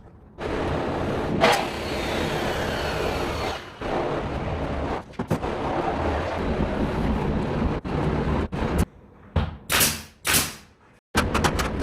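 Interior carpentry work noise. Several stretches of steady loud noise end abruptly, and a run of sharp bangs comes near the end.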